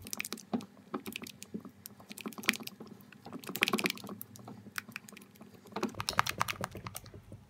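A silicone spatula stirring white glue mixed with foaming hand soap and lotion in a glass bowl: irregular clicking and scraping, in short clusters.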